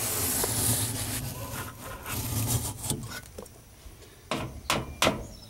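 Fin comb scraping along the aluminium fins of an evaporator coil to straighten and clear clogged fins, a rough rasping rub for the first few seconds. Three sharp clicks or knocks come near the end.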